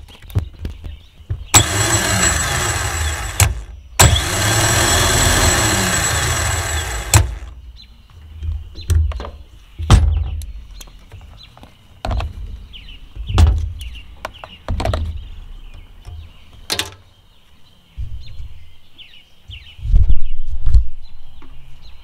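A Jeep Cherokee XJ starter motor, removed from the vehicle and powered from a jump pack, spins up twice on the bench, for about two and then three seconds, its whine rising and then winding down each time. Clicks and knocks of the clamps and the motor being handled follow, with a heavier thump near the end.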